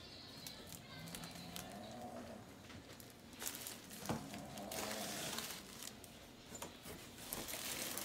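Clear plastic plant sleeves crinkling and rustling as sleeved potted plants are handled and set down beside a cardboard shipping box, with scattered small clicks and a sharper knock about four seconds in.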